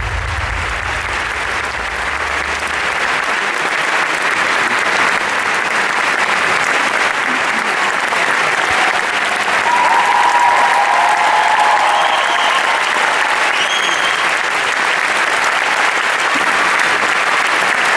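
Theatre audience applauding, dense steady clapping, with a few cheers rising over it in the second half. A low note of the closing music dies away about three seconds in.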